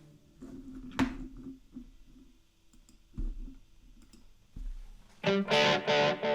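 Electric guitar played through a TC Electronic Flashback X4 delay pedal into amplifiers. A held sound dies away, a sharp click comes about a second in, and a few quiet picked notes and low thumps follow. Then, about five seconds in, loud rhythmic strummed chords start.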